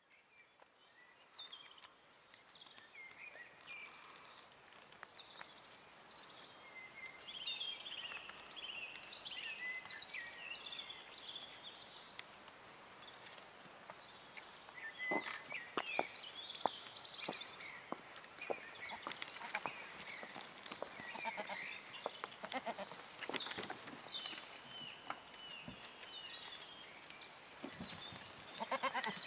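Domestic goats and kids bleating now and then, with a pulsing bleat near the end. Many short, high bird chirps run throughout, and a few sharp clicks come about halfway through.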